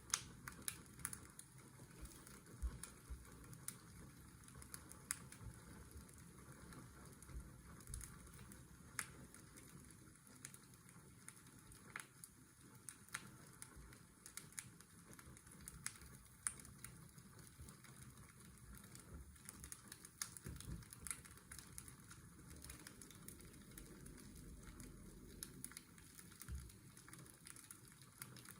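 Faint fireplace fire crackling, with irregular sharp pops scattered throughout, over a steady low hiss and rumble of washing-machine white noise.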